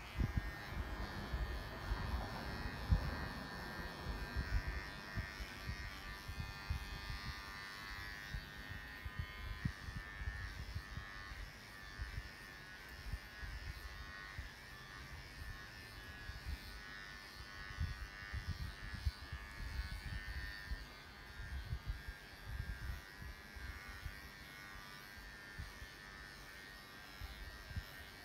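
Electric pet hair clippers running with a steady buzz, over irregular low knocks and bumps of handling.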